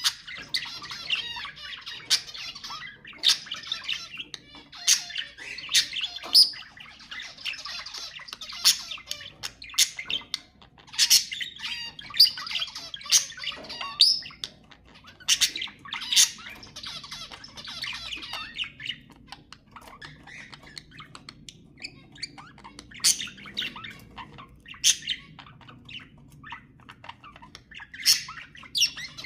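Budgerigars chattering and warbling, with frequent sharp chirps and squawks. The chatter thins out for several seconds past the middle and picks up again near the end.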